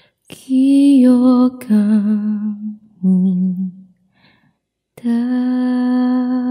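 A woman singing a slow ballad in Korean unaccompanied, a few gliding phrases with light vibrato, then a short pause about four seconds in before she holds one long, steady note.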